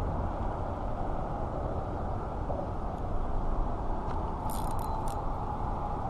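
Steady rumble of road traffic on a highway overpass, with a few light clicks about four and a half seconds in.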